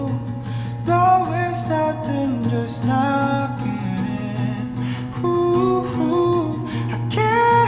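A man singing a slow melody over an acoustic guitar.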